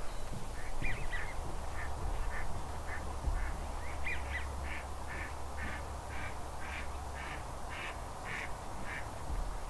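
Waterfowl calling in a run of short calls, about two a second, growing louder in the second half and stopping about a second before the end, over a low steady rumble.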